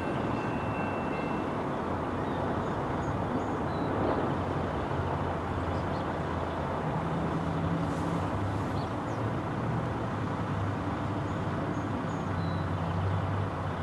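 Steady rumble of a freight train's tail end rolling away down the line, mixed with pickup trucks and cars driving over the level crossing, their engine hum rising and falling as each one passes.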